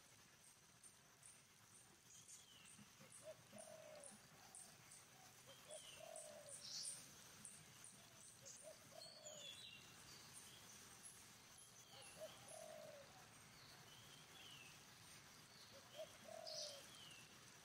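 Faint birds calling: short low calls repeated every few seconds, brief falling high chirps, and a fast high ticking.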